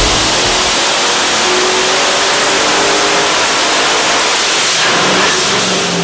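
Twin-turbocharged small-block V8 running hard on an engine dyno, revs climbing under load. It changes about five seconds in, with a falling note as the pull ends.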